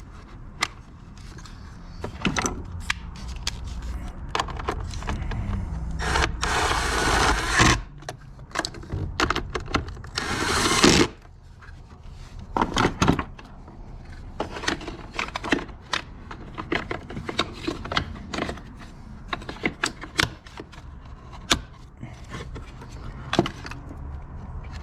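Hand tools and parts being handled during work in a car's engine bay: scattered clicks and knocks, with two longer stretches of hiss-like noise about six and ten seconds in.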